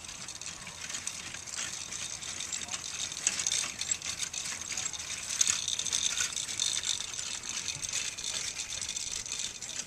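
Outdoor ambience: a steady high-pitched buzz with faint rattling and ticking throughout, a little louder around the middle.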